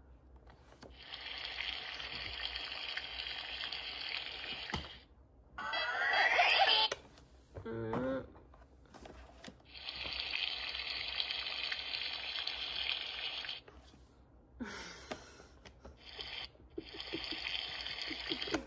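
Water running in three stretches of a few seconds each. About six seconds in there is a louder pour into a container, its pitch rising as it fills. A brief voice comes about eight seconds in.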